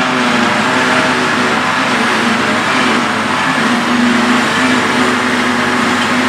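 John Deere self-propelled forage harvester chopping grass silage, its engine running steadily under load with the rushing whirr of the cutterhead and blower, a tractor pulling the silage wagon alongside. The sound is steady and even in pitch.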